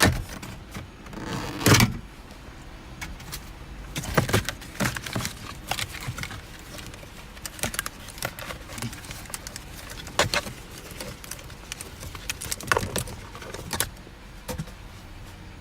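Irregular clicks, knocks and rattles of hand tools and plastic trim being worked loose from a car's steering column, with a few louder knocks.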